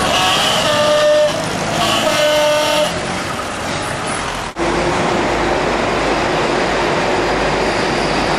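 Vintage Chenard & Walcker touring cars running as they pull out on a street, with two short steady tones of about a second each in the first three seconds. After a cut, steady engine and road rumble heard from inside a car driving behind them.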